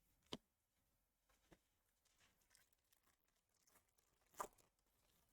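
Near silence with a few short soft clicks of baseball cards being handled, the loudest two about a third of a second in and near the end.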